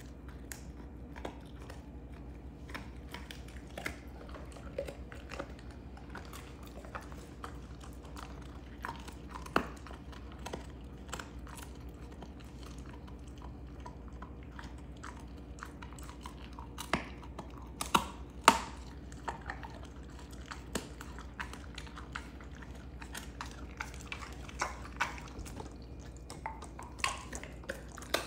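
A Belgian Malinois chewing a beef rib bone: irregular sharp crunches and cracks of bone between its teeth, with a few louder cracks in quick succession a little past halfway.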